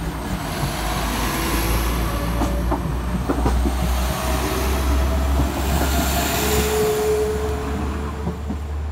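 Class 172 Turbostar diesel multiple unit passing close by over a level crossing, its noise swelling and then fading as it goes. Wheels clack over the rail joints and crossing, with a short wheel squeal late on.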